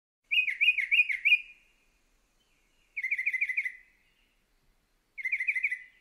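Mockingbird singing: three short phrases about two seconds apart, each a quick run of four or five repeated notes. The second and third phrases are alike and slightly lower than the first.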